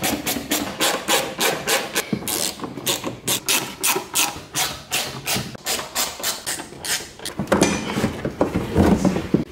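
A hand ratchet backing out the T25 Torx screws that hold a plastic wheel-well liner, its pawl rasping in quick strokes at about four a second. Near the end the strokes blur into a rougher scraping.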